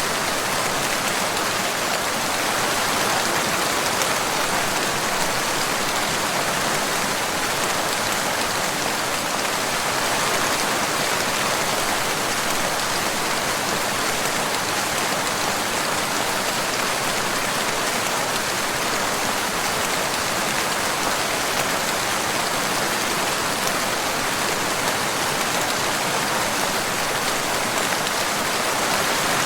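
Steady, heavy rain falling, an even hiss of countless drops with no thunder or single distinct drips.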